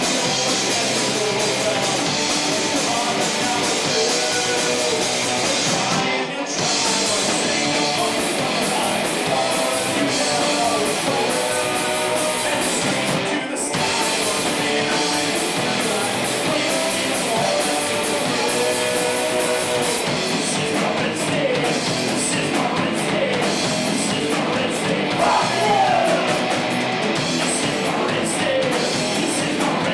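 Live rock band playing loud, with electric guitars, bass and drums and a voice singing. The band cuts out for a split second twice, about six and thirteen seconds in.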